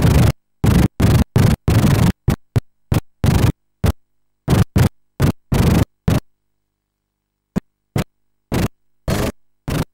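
Harsh noise from a worn videotape soundtrack, cutting in and out in a dozen or more short bursts with dead silence between them, and a silent stretch of about a second and a half past the middle.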